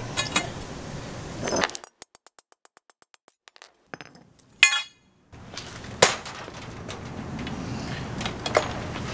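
Steel conduit and a claw hammer clinking and knocking on concrete, with one sharp metal strike a little past halfway through. A few lighter knocks follow over a steady low background noise.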